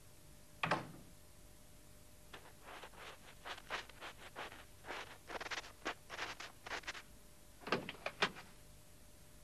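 A door shut with a single thud, then footsteps crunching through snow, about three to four steps a second for several seconds, then a quick cluster of clicks and a clunk as a small van's door is opened.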